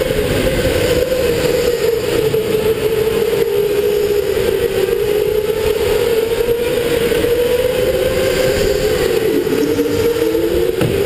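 Electric go-kart's motor whining as it drives, the pitch wavering up and down with speed; about nine and a half seconds in it drops sharply and climbs again as the kart slows for a corner and accelerates out. Under the whine runs a rough, steady rumble.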